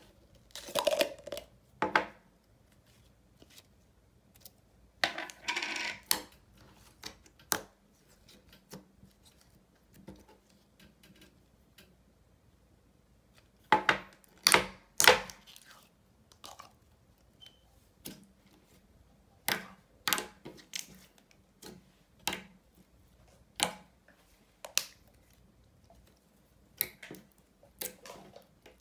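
Small plastic slime tub being handled and its lid pried open, then fingers poking and pressing thick white slime, giving a string of short sharp clicks and pops with quiet gaps. The clicks come in a loud cluster about halfway through, then singly about once a second near the end.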